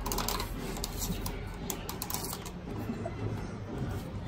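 Irregular light clicks and rattles from a plastic toy bird being handled while puppies chew at it.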